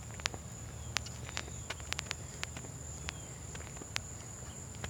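Footsteps on a rubberised playground surface, heard as light, irregular taps, over a steady high-pitched insect drone.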